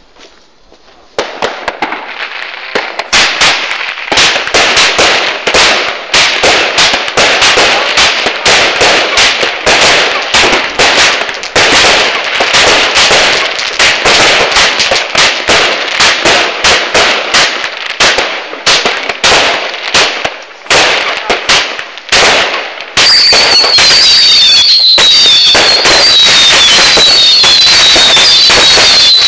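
100-shot firework cake firing: a rapid string of sharp launch bangs, several a second, starting about a second in. From about 23 s in, the shots merge into a dense, continuous crackling barrage with repeated falling whistles.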